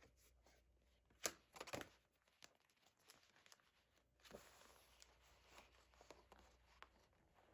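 Faint handling of paper: light rustling with a few sharp taps of cards and album pages being handled.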